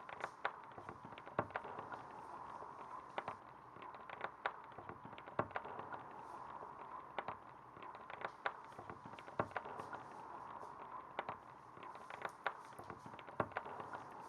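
Irregular sharp crackles and pops over a steady hiss.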